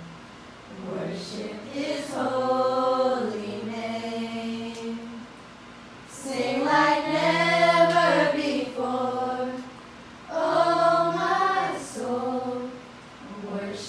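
A small group of teenagers, mostly girls, singing a slow worship song together unaccompanied, in long held phrases with short breaks between them.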